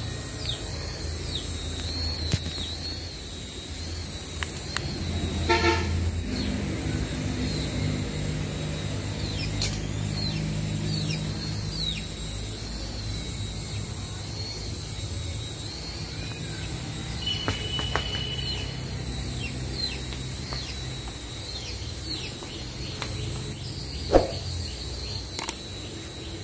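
Mini RC toy helicopter flying low: its small electric motors give a high whine that wavers in pitch as the throttle changes, over the steady whir of the rotor blades. A brief pitched note sounds about six seconds in, and a sharp knock about 24 seconds in is the loudest moment.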